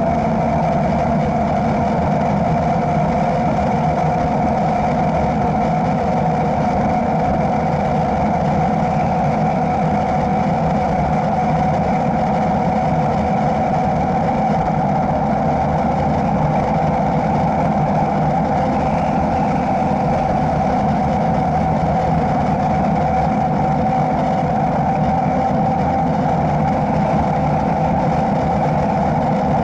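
Mountain bike's knobby tyres humming on asphalt at speed, a steady drone whose pitch creeps slightly higher as the bike speeds up, under a continuous rush of wind.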